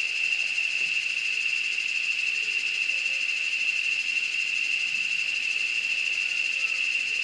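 Steady, high-pitched insect chorus buzzing without a break.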